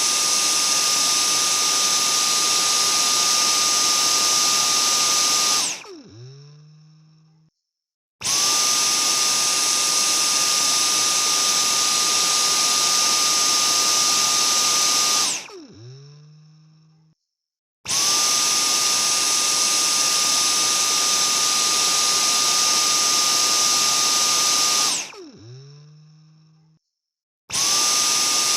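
Vacuum cleaner motor running with a steady high whine and rushing air, switched off three times and left to wind down with a falling hum, then started up again after a brief silence each time.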